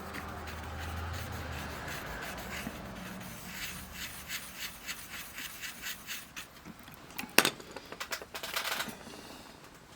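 Fiberglass scratch pen scrubbing a multimeter's metal contacts: a quick run of short scraping strokes, with one sharp click about seven seconds in.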